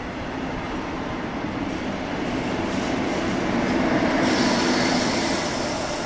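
Double-deck regional push-pull train with a class 112 electric locomotive rumbling past on the rails. The sound swells to its loudest about four seconds in, with a hiss joining as the locomotive comes level, then eases off.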